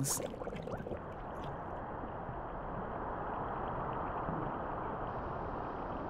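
Scalding geothermal hot spring bubbling and steaming: a steady gurgling rush of boiling water, with a little more hiss near the end.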